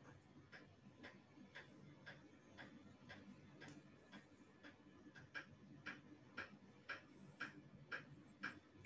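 Faint, regular ticking of a clock, about two ticks a second, over a low steady room hum.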